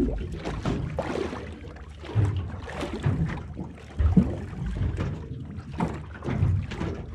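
Water slapping and knocking against a small boat's hull, with wind on the microphone, while a fish is played on a spinning rod. The knocks come irregularly, and the sharpest comes about four seconds in.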